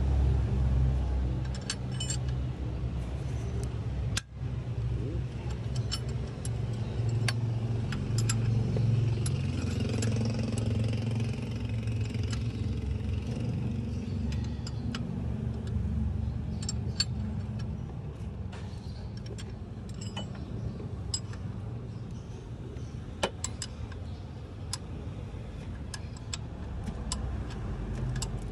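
Car engine running with a steady low rumble, with scattered light clicks and taps over it; the sound breaks off for an instant about four seconds in.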